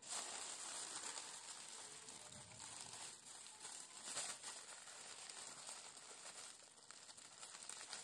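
Aluminium foil crinkling faintly as hands press and smooth it down over a baking dish.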